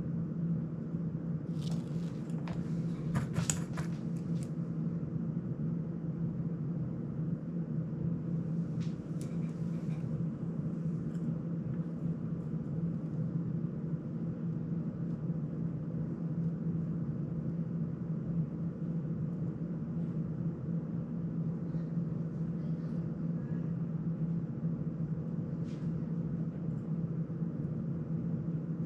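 Steady low machine hum. A few light clicks and taps of tools on small parts come a couple of seconds in and again around ten seconds in.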